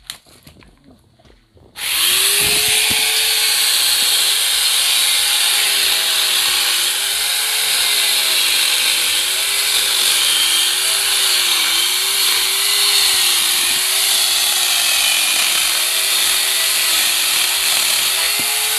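Corded angle grinder fitted with a chainsaw adapter bar and chain, starting up about two seconds in and cutting into a tree branch. Its motor whine wavers up and down in pitch as the chain cuts the wood.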